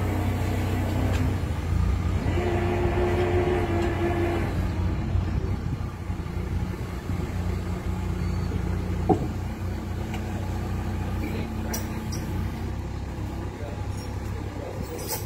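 Mini crane's engine running steadily with a low hum, rising to a higher whine for about two seconds near the start, while it lifts concrete piles. A single sharp clank about nine seconds in.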